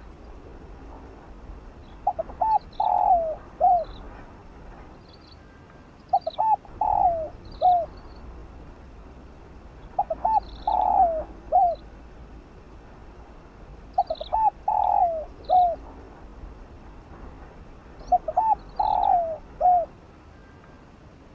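Spotted dove cooing its song: a phrase of a few short coos, a longer falling croo and one last short coo, repeated five times about every four seconds.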